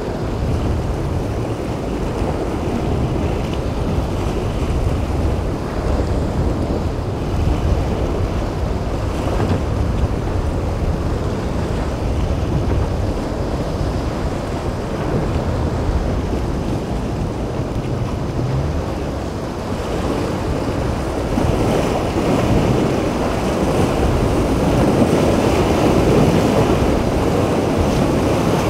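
Rough inlet surf and churning water with steady wind noise on the microphone, growing louder in the last several seconds.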